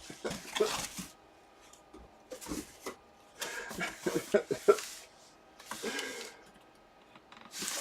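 Intermittent rustling and handling noises in several short irregular bursts with quiet gaps between, typical of packaging being opened.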